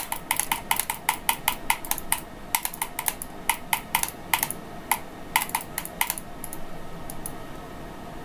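Typing on a computer keyboard: quick, irregular key clicks, several a second, that stop about six seconds in, with a few scattered taps after.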